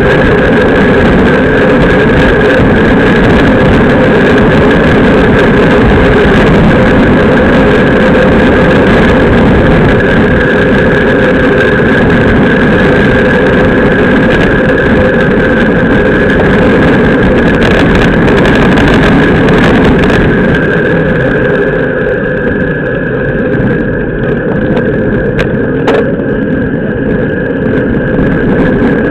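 Wind buffeting and tyre-on-asphalt rumble at a camera mounted on a road bicycle riding fast in a race bunch, loud and steady. It grows a little quieter and duller about twenty seconds in.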